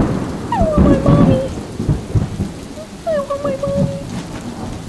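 Thunder and rain: a sudden clap at the start rolling into a heavy rumble that swells about a second in, over steady rain. Two drawn-out whimpering cries that fall in pitch come through, about a second in and again about three seconds in.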